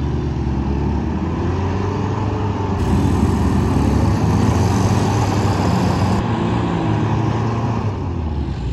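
Engines of a Ford M151A2 jeep and a three-wheeled loader rickshaw running hard under load as they pull against each other on a tow chain. Engine pitch rises and falls, with a hissing spray of dirt from the jeep's spinning tyres, loudest in the middle.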